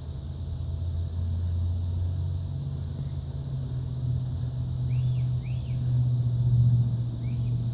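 Low, steady rumble of a vehicle engine running, its pitch stepping up slightly a couple of seconds in and getting louder. Three short high chirps sound toward the end.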